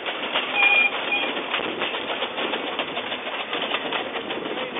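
Narrow-gauge steam locomotive running past hauling a carriage, its wheels clicking irregularly on the track over a steady rush of noise, with a brief high-pitched tone about half a second in.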